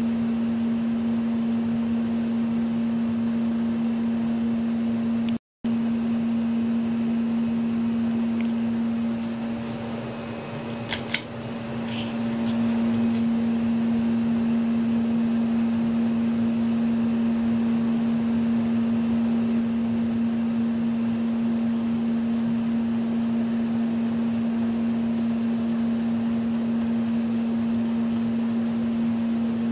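1987 Lasko 3600L 36-inch ceiling fan running with a steady motor hum. The hum cuts out for a moment about five seconds in. It dips quieter around ten seconds, where two sharp clicks come, and then returns slightly louder.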